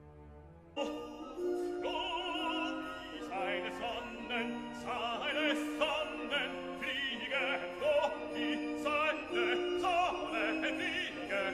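Operatic singing with a wide vibrato over orchestral accompaniment, cutting in suddenly about a second in after a low held tone.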